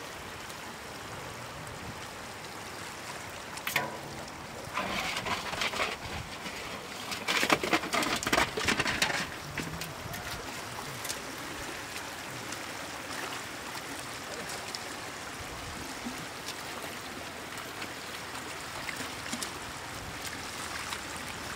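Shallow floodwater running steadily over the ground, with bursts of splashing from about four to nine seconds in, loudest just before the end of that stretch, as catfish are grabbed and thrash in the water.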